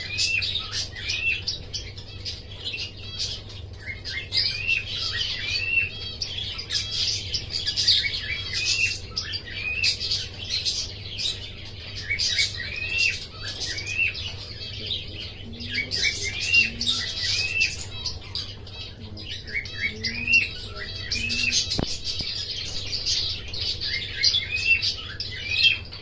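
Caged domestic canary singing a long, continuous song of quick runs of short rising-and-falling whistled notes, over a low steady hum.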